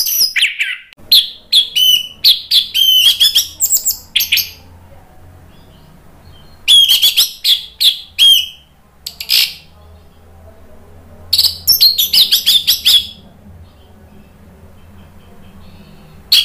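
Orange-headed thrush singing loud, varied song: bursts of quick whistled notes sliding up and down, with pauses of two to three seconds between bursts and a new burst starting right at the end.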